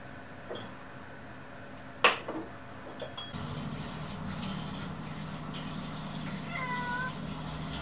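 A sharp click about two seconds in, then a low steady hum sets in, and near the end a cat meows once, a short call begging for its wet-food supper.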